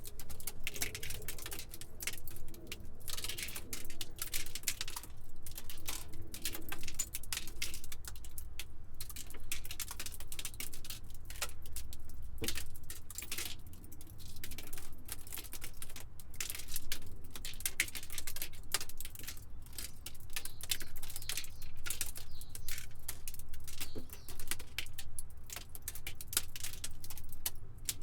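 Broken glass debris tinkling and clattering: small shards falling and skittering in a dense, continuous run of light clicks over a low rumble.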